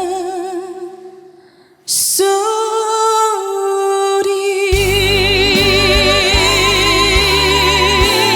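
Female trot singer holding a long closing note with vibrato over the band's accompaniment. A crash comes about two seconds in, and a full band with bass and drums swells in about halfway through.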